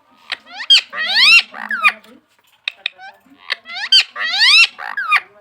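Pet parrot calling loudly in two bouts, each a run of short sharp chirps and rising squawks that glide upward in pitch.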